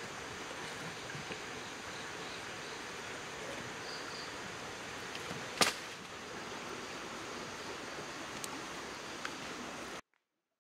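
Steady outdoor background hiss with faint scattered ticks, and a single sharp click a little past halfway. The sound cuts out abruptly near the end.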